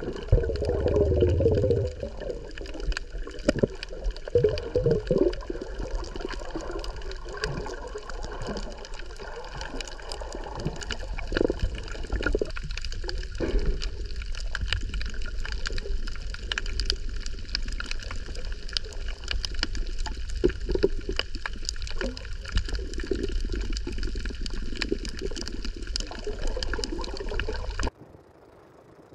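Underwater sound from a snorkeler's GoPro: a muffled wash of water gurgling and sloshing, with many small clicks and crackles. A louder low rumbling surge comes at the start. The sound cuts off just before the end.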